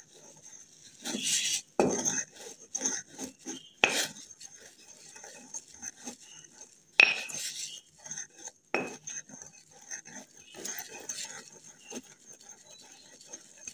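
Pestle grinding and scraping round a mortar (kharal) in uneven strokes, with a few sharper knocks. It is triturating mercury into a white powder of sal ammoniac.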